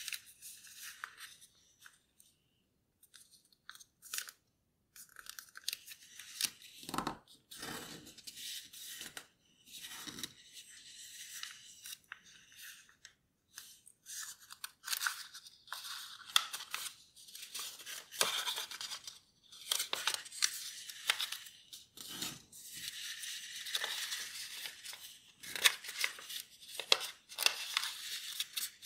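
A sheet of paper being folded by hand into a paper airplane: crisp rustling and crinkling in irregular bursts as flaps are folded over and creases pressed flat, with short pauses and a quiet stretch a few seconds in.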